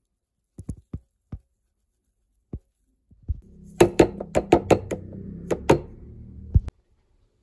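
Seasoning being tapped out of a scoop onto raw shrimp in a plastic container. There are a few light knocks, then a quick run of sharp taps about halfway through. A low steady hum runs under the taps and cuts off suddenly near the end.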